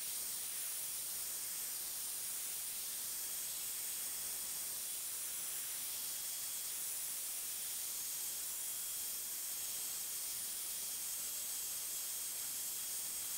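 Faint steady hiss with a thin high tone running through it. There is no clear drill motor sound.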